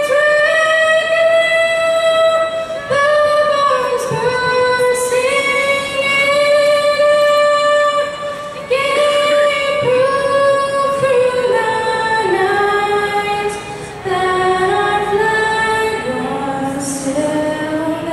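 A young girl singing solo into a microphone, unaccompanied, holding long notes in a melody that steps down in pitch, with short breaths between phrases.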